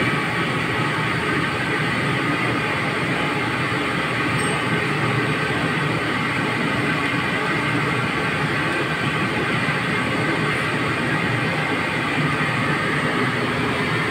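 A steady, even rushing roar of running machinery, loud and unchanging.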